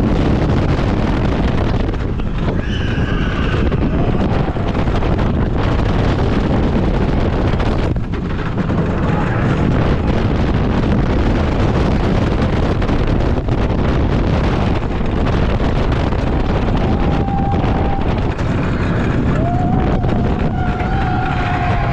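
Roller coaster train of an RMC Topper Track wooden coaster running at speed through its course: a steady rush of wind over the front-seat microphone over the deep rumble of the wheels on the track. Short high-pitched screams from riders come a few seconds in and again near the end.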